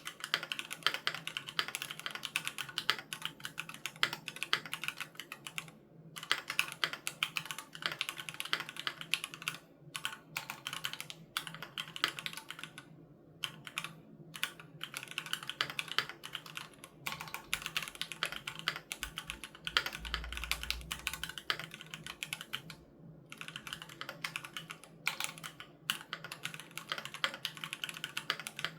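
Typing on a Keychron Q3 aluminium mechanical keyboard with Gateron G Pro Red linear switches: fast, continuous keystrokes in long runs, broken by a few short pauses.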